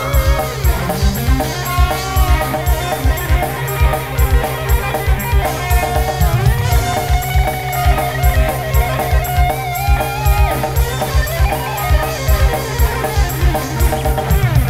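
Live dangdut band playing an instrumental passage: a steady drum beat of about four strokes a second under electric guitar and a held melodic lead line, with no singing.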